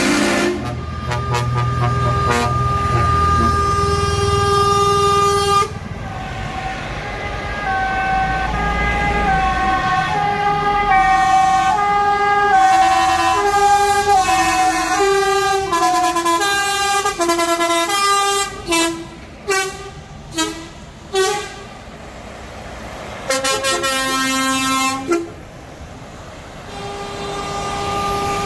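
Trucks in a passing convoy sounding their air horns. Long held horn blasts give way to a run of changing notes like a multi-tone musical horn playing a tune, then several short blasts. Diesel engine rumble runs under the horns for about the first ten seconds.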